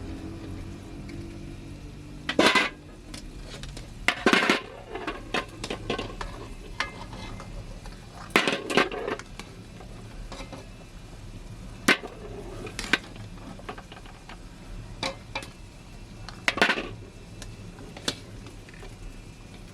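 A utensil stirring and clinking against metal cookware, with sharp clatters every few seconds over a faint steady sizzle.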